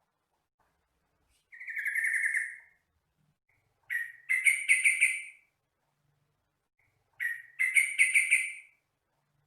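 Yellow-vented bulbul (trucukan) singing: three short bubbly, chattering song phrases about three seconds apart, with silence between them.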